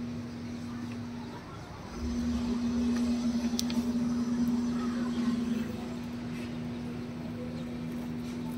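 A steady mechanical hum at one low, held pitch, louder for a few seconds in the middle, like a motor or engine running nearby.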